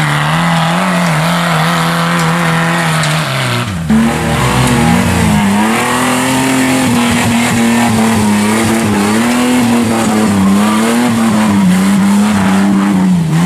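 Engine of an off-road competition 4x4 held at high revs under load, its pitch wavering up and down as the vehicle climbs a steep muddy bank. There is a brief break about four seconds in, after which the engine note runs on a little higher.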